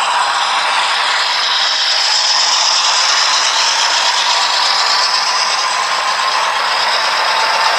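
Model train running along layout track: a steady rattle of wheels on rail with a high whine that rises and falls gently.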